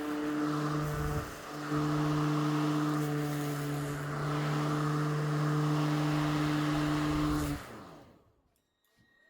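Ryobi ONE+ 13-inch cordless battery lawn mower running with a steady electric motor hum and blade rush, dipping briefly about a second in, then switched off about seven and a half seconds in, spinning down quickly to quiet.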